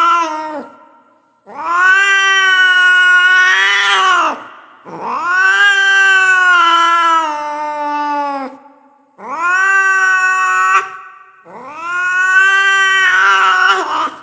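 A cat yowling in long, drawn-out wails: the tail of one call, then four more, each a second and a half to three and a half seconds long with short pauses between, the pitch held fairly level and dropping at the end of each. It is an angry cat's yowl.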